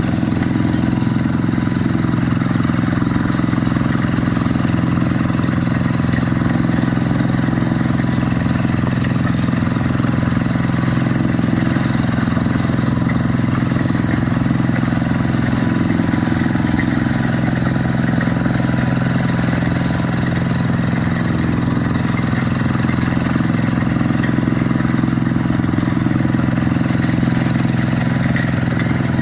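Quick G1000 hand tractor's single-cylinder diesel engine running steadily at an even speed.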